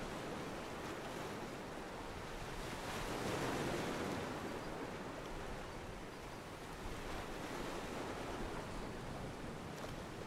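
Ocean water washing against a pier: a steady wash of small waves that swells briefly about three seconds in.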